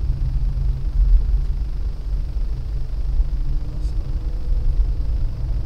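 Car's engine and tyre noise inside the cabin while it is driven slowly: a steady low rumble, with a faint hum coming in about halfway through.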